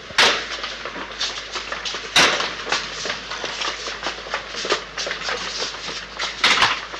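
Irregular footsteps and knocks on a hard corridor floor and walls, with a few louder bangs, over a steady hiss.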